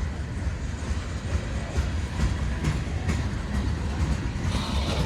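Freight cars of a CSX manifest train rolling past: a steady rumble of wheels on rail, with scattered clicks from the wheels on the track.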